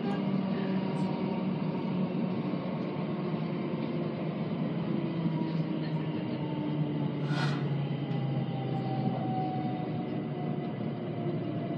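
Passenger train heard from inside the carriage as it runs into a station, a steady rumble of wheels on track with a motor whine that falls slowly in pitch through the second half as the train slows. A short sharp noise comes about seven seconds in.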